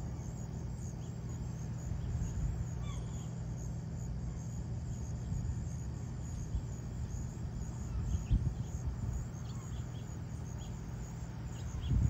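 Steady low hum of a car engine idling, under a hiss of light rain, with a few faint short bird chirps about three seconds in and again near the end.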